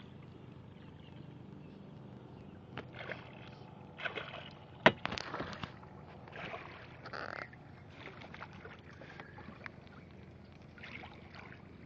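Low steady hum on a fishing boat, with scattered knocks and clatter of handling on board and one sharp click about five seconds in.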